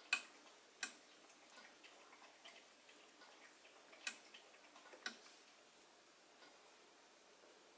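Knitting needles clicking against each other as stitches are worked: four faint, sharp clicks at uneven intervals, two in the first second and two more about four and five seconds in.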